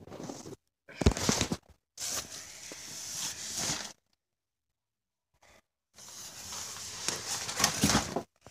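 Rustling and scraping handling noise from a handheld camera being moved about, with a few sharp knocks. It comes in several bursts that cut off abruptly into dead silence.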